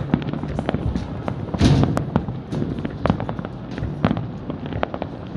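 Fireworks going off: a dense, irregular run of sharp bangs and crackles, with a louder, longer burst about a second and a half in.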